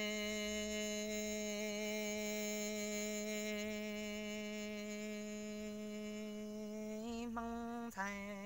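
A man singing Hmong kwv txhiaj unaccompanied, holding one long, steady note for about seven seconds, then moving through a couple of shorter notes near the end.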